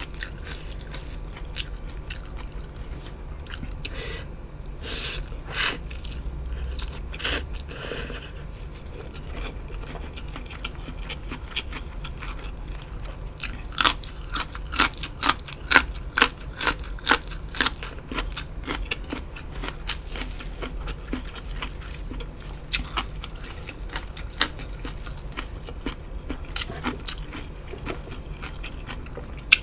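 A person chewing and crunching food, with a run of loud, crisp crunches about two a second in the middle and softer, sparser chewing around it.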